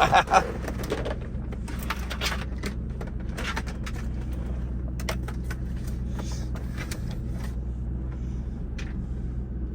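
Steady low drone of a 2002 Lincoln Navigator's 5.4-litre four-valve V8 running, heard inside the cabin, with scattered clicks and rustles of handling on top, loudest in the first second.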